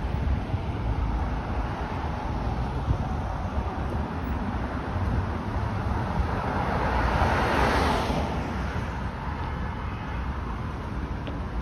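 Steady passing road traffic on a multi-lane street, with one vehicle passing close, swelling to its loudest about eight seconds in and then fading. A low wind rumble on the microphone runs underneath.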